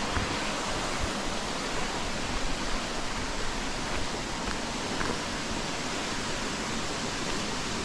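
Steady rushing of water at a creek waterfall.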